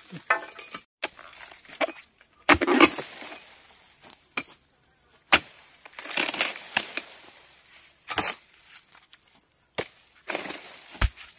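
Oil palm harvesting chisel on a long pole chopping into frond bases and a bunch stalk in the palm crown: sharp chops and cracks at uneven gaps of one to two seconds, with fronds rustling between them.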